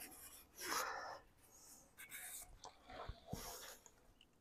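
Shop rag wiping carb cleaner and lapping-compound grit off an aluminium Type 4 cylinder head, in a few soft rubbing strokes, with a couple of light knocks past three seconds in.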